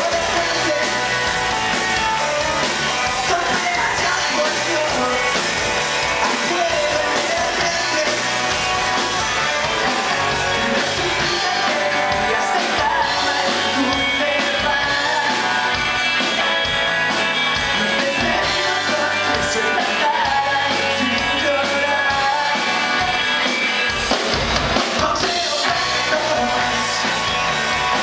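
Live rock band playing loud: electric guitars, bass guitar and drum kit, with a male singer singing into a microphone.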